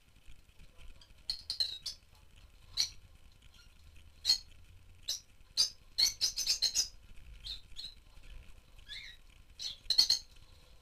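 Rosy-faced lovebirds giving short, high-pitched chirps, singly and in quick runs. There is a fast burst of about seven calls around six seconds in and another cluster near the end.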